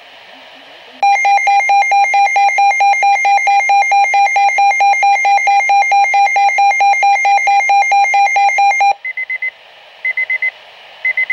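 Weather radio emergency alert signal: a loud electronic attention tone that alternates rapidly, about four times a second, for about eight seconds, starting about a second in. It is followed by three short bursts of beeping data tones.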